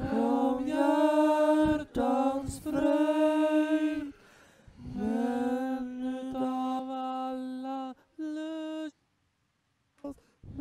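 Playback of a recording of teenage boys singing a Swedish folk song unaccompanied, in long sustained notes that break between phrases. The singing stops about nine seconds in, and a short click follows a second later.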